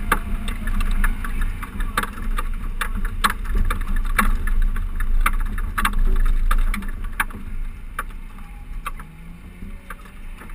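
A race car running at speed, heard through a camera mounted on the outside of its body: a heavy low rumble of wind on the microphone and road noise, broken by many sharp clicks. It grows quieter about seven seconds in.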